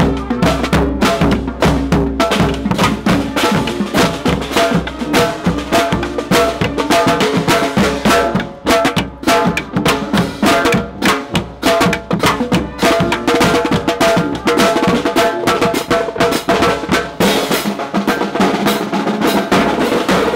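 Marching-band street drumming: snare and bass drums keep up a fast, steady beat of rapid strikes, with a few held pitched notes sounding over them.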